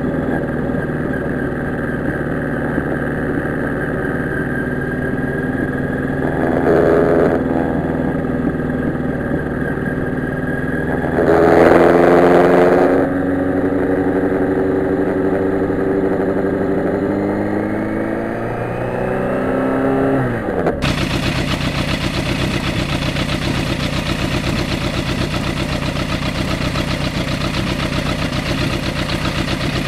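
1991 Yamaha FZR1000's inline-four engine running at a steady pace while riding, with two short rushes of noise about 7 and 12 seconds in, then rising in pitch as it speeds up. About two-thirds of the way through the sound changes abruptly to the engine idling with a rapid, even pulse.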